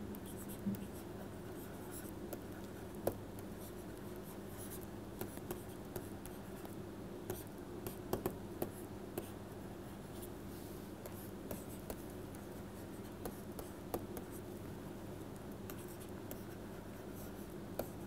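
Stylus tapping and scratching on a tablet screen during handwriting: scattered light clicks at irregular intervals over a steady low hum.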